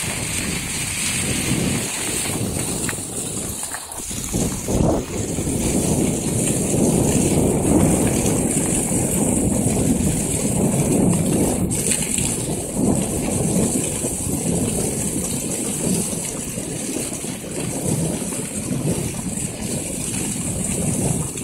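Steady rushing, rumbling noise of skijoring behind a dog team at speed: skis sliding over packed snow and wind on the microphone, rising and falling in loudness without a break.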